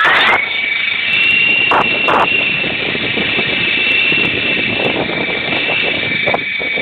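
Small radio-controlled toy car's electric motor whining: it spins up with a short rise in pitch right at the start, then holds a steady high whine over rattling running noise, with a few light clicks.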